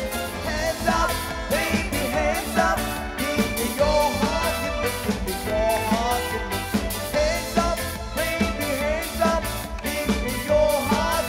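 Live band playing an upbeat song: drum kit keeping a steady beat on the cymbals, with bass guitar and keyboard and a singer's lead melody gliding over the top.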